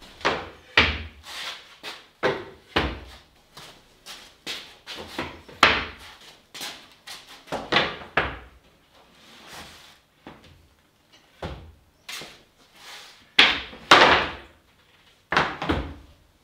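Wooden boards knocking and clattering against each other as a stack of slats leaning against a wall is handled and sorted by hand: a long irregular string of sharp wooden knocks, the loudest a couple of seconds before the end.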